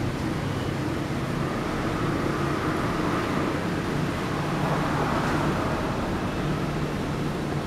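Street traffic ambience on a wet road: a steady hiss with a low engine hum, swelling a little for a few seconds near the middle as a vehicle goes by.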